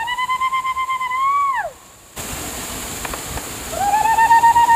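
A man blowing a hand whistle through cupped hands: a long, fluttering hoot-like note that drops away at the end, then about three and a half seconds in a second such call, which rises briefly before falling. After the first call the steady rush of a waterfall comes in underneath.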